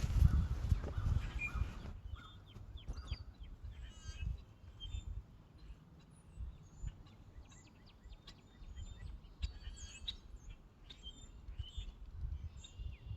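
Small birds chirping, many short high calls scattered throughout, over a low rumble that is loudest in the first two seconds.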